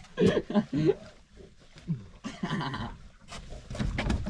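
Short wordless vocal sounds from a man, laughing in excitement, with a whinny-like quality, strongest in the first second and then trailing off into quieter sounds.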